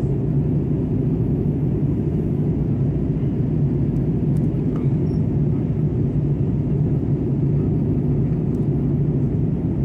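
Steady low rumble of an airliner's passenger cabin during descent, the engines and airflow heard from a window seat.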